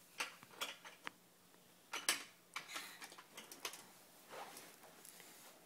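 Plastic Duplo bricks clicking and clattering as a toddler handles and stacks them: a string of light knocks, the sharpest about two seconds in.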